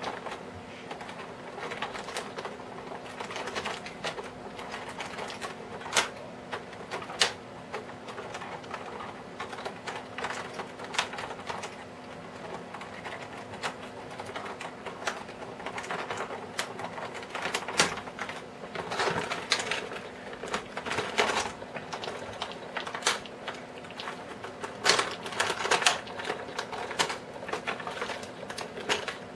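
Clear plastic packaging insert crinkling and clicking irregularly as a figure is worked loose from it and its twist ties by hand, with a faint steady hum underneath.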